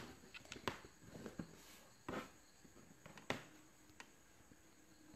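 Quiet room with a few faint, scattered clicks and taps and a short soft noise about two seconds in; a faint steady hum comes in past the middle.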